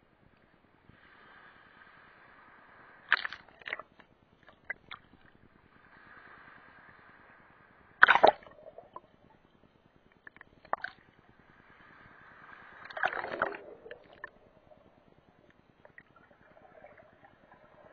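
Small sea waves sloshing and splashing against a camera held at the water line. Surges of water swell and fade every few seconds, with sharp splashes among them; the loudest splash comes about eight seconds in.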